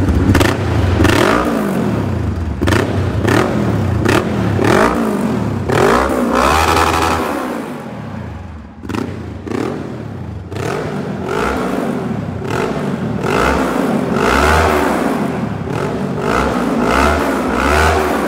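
Kawasaki Versys 650 parallel-twin engine, on an aftermarket full exhaust system, revved again and again from idle. Each blip rises and falls in pitch, with a short drop back to idle about halfway, and the sound echoes.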